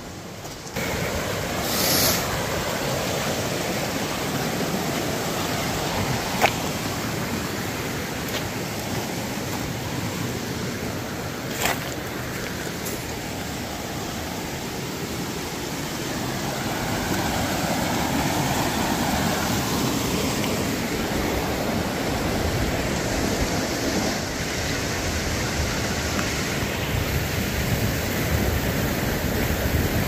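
Shallow rocky river running over stones and small rapids: a steady rush of water, with a couple of brief knocks.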